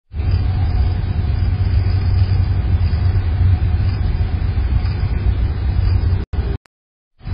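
Steady low outdoor rumble with hiss picked up by a surveillance camera microphone, which cuts out abruptly near the end, leaving a short gap of silence.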